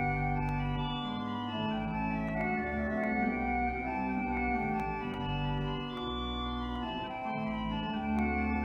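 Organ music: slow, sustained chords over a deep held bass line that moves to a new note every second or so.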